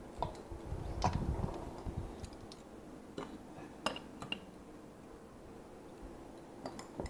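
A metal teaspoon clinking against glass spice jars and a metal bowl while spices are scooped out: about half a dozen sharp, separate clinks, with some low handling noise about a second in.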